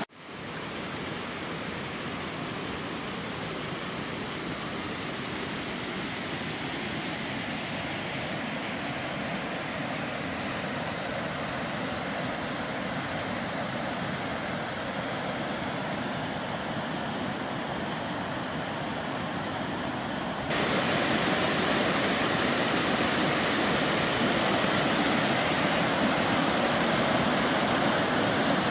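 Steady rush of a waterfall. It gets suddenly louder and brighter about two-thirds of the way through.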